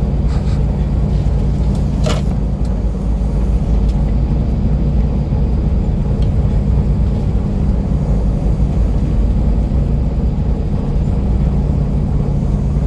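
Steady low drone of a coastal cargo ship's engine and machinery while the ship is underway, with a brief rattle about two seconds in.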